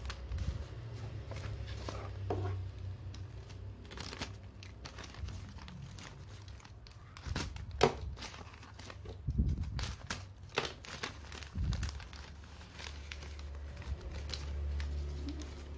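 Newspaper and paper wrapping crinkling and rustling as it is pulled open by hand, in irregular crackles, the sharpest about halfway through.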